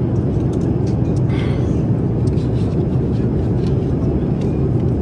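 Airliner cabin noise in flight: a steady low rumble of engines and airflow, with a few faint light clicks on top.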